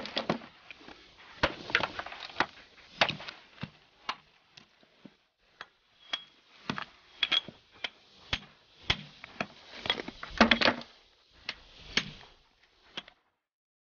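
Rock hammer striking small pieces of rock, with loose rock fragments clinking against each other. The sound is a series of irregular sharp knocks and taps, a few with a short ring, and it stops a second or so before the end.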